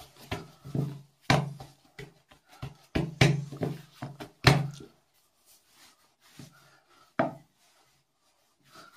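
Hands slapping and pressing a ball of soft pişi dough flat on a kitchen counter: a run of dull thumps, closely spaced for the first five seconds, then a few scattered ones.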